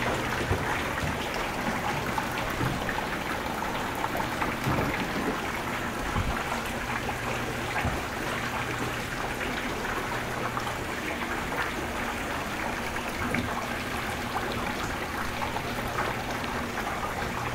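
Water leaking through the ceiling and falling in a steady patter, like rain indoors.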